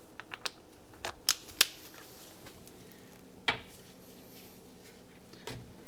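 Sparse metallic clicks and clinks of a hand wrench and socket working a stuck shock bolt: a quick run of clicks in the first two seconds, then one more about three and a half seconds in.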